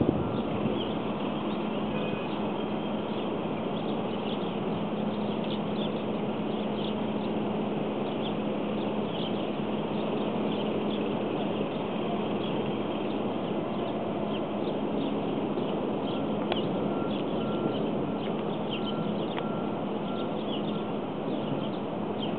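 Faint, scattered high bird chirps over steady outdoor background noise with a constant low hum.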